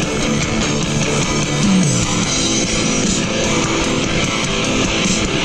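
Background rock music with guitar, loud and steady.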